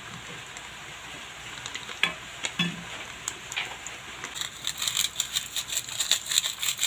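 A plastic sachet of oyster sauce being squeezed over a pot of broth, with a few scattered clicks and then, from about four seconds in, a fast run of crisp crinkling ticks.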